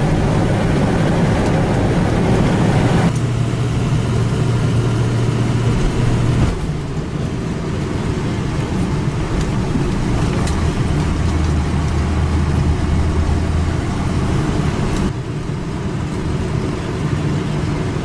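Car engine and road noise heard from inside the cabin while driving: a steady rumble and hum whose pitch and level shift abruptly a few times.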